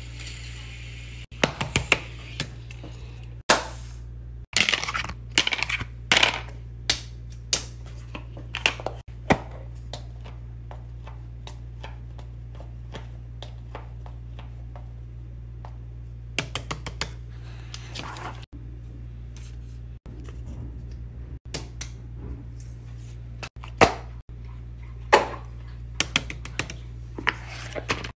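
Hands handling small fidget toys on a tabletop: scattered sharp clicks and taps as plastic and rubber toys are picked up and set down, over a steady low hum.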